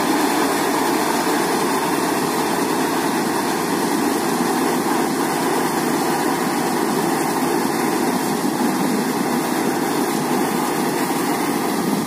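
Rice combine harvester running steadily as it drives through the paddy field: a loud, even machine noise from its engine and working parts.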